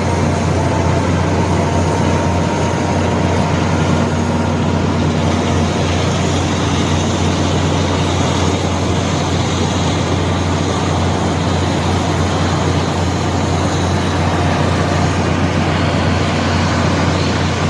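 Heavy machinery running steadily: a constant deep hum under an even wash of mechanical noise, with no change in pace.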